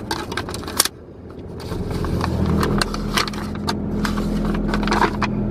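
Brown wrapping paper around a banana-leaf food packet rustling and crinkling as it is unfolded by hand, in irregular crackles. About two seconds in, a steady low engine hum comes up and holds under it.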